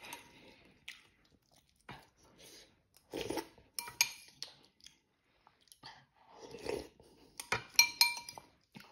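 Someone slurping and chewing instant noodles, with two long slurps about three and seven seconds in. A spoon clinks against a ceramic bowl near the end.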